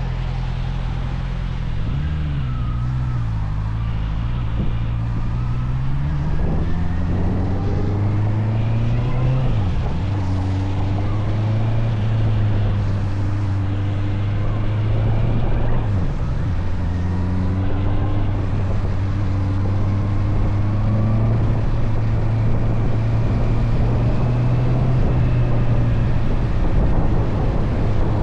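Motorcycle engine under way. Its pitch climbs as the bike accelerates and drops sharply twice, about ten and sixteen seconds in, as it shifts up, then settles into a steady cruise.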